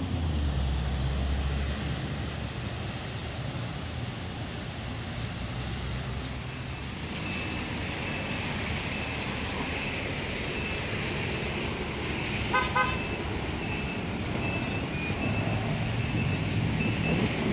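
Street traffic noise at a city intersection, with a low rumble in the first couple of seconds. A little past two-thirds of the way through, a car horn gives a quick series of short toots.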